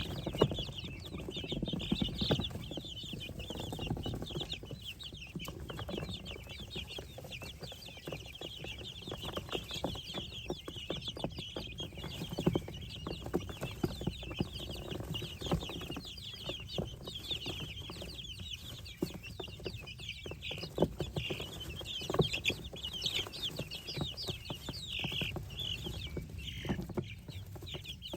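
A brood of baby poultry (chicks, guinea keets and ducklings) peeping continuously, many short high chirps overlapping, with scattered light taps beneath.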